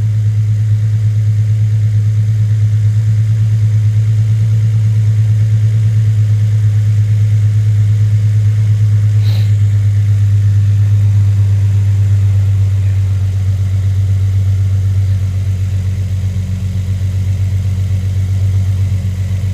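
Infiniti G35's 3.5-litre V6 idling steadily and smoothly, now firing on all six cylinders with its misfire cured.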